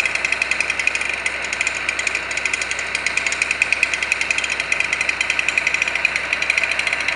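Large two-stroke chainsaw, a Husqvarna 3120 with a 50-inch bar, running steadily with a rapid, even pulsing.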